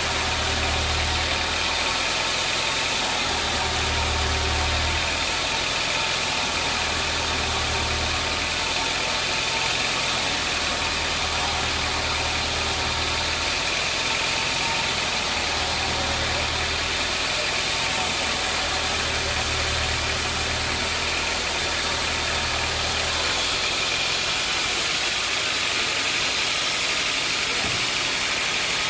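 Sawmill machinery running steadily with a loud, even whine, under a low hum that swells and fades every couple of seconds and stops a little before the end.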